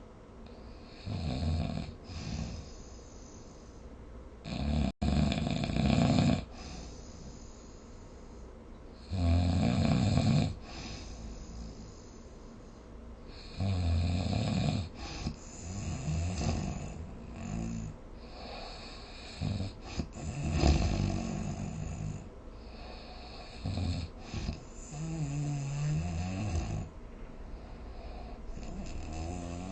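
A person snoring in their sleep: irregular snores a second or two long every few seconds, with quieter breathing between. Near the end one snore carries a wavering pitched tone.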